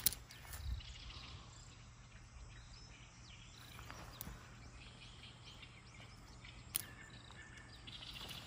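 Faint outdoor ambience: distant birds chirping and insects, with a few soft clicks of footsteps on the path.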